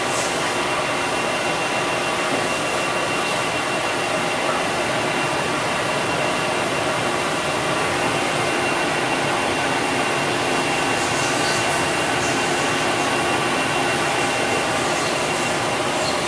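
Cincinnati CNC machining center running, a steady whirring hum with a high, steady whine above it.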